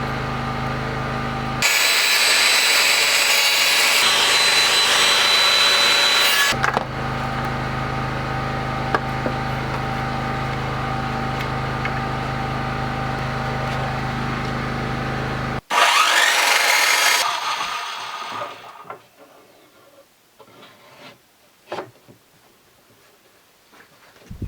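A woodworking power tool runs with a steady hum. From about 2 to 6.5 seconds it cuts into timber, louder and harsher. The sound breaks off sharply, a short loud burst of cutting fades away, and a few faint knocks follow.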